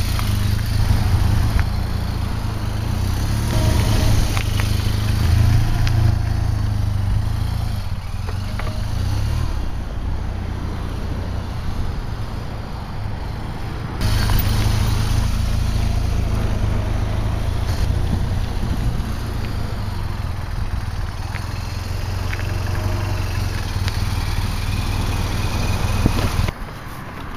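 BMW R1200 GS flat-twin (boxer) motorcycle engine running on the road, with a heavy low rumble. The sound jumps abruptly about halfway through and again near the end.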